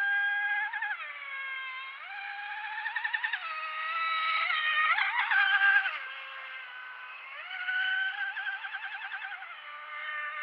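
High-pitched whine of an RC outrigger boat's HK2218 2500KV brushless motor, stepping and gliding up and down with the throttle and warbling in places. The loudest, highest stretch comes about four to six seconds in.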